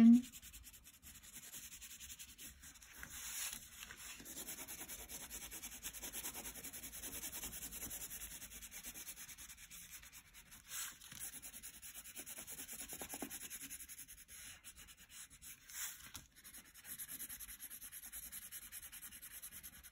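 Green wax crayon rubbing on paper in quick, steady strokes as leaves are coloured in, with a few brief pauses.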